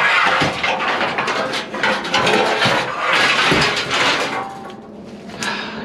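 Loose scrap metal clattering and rattling as it is handled: pieces of aluminum extrusion and steel brackets knocking and scraping together. The clatter is dense for about four seconds, then dies down.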